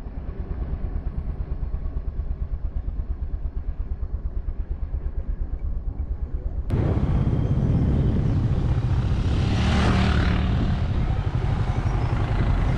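A vehicle on the move: engine and road noise with a fast, even pulsing. About seven seconds in, it jumps abruptly to a louder, fuller rush that carries on to the end.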